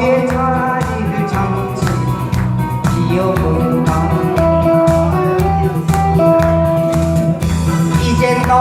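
Backing music for a Korean trot song in a fast disco arrangement, with a steady beat, guitar and sustained melody lines.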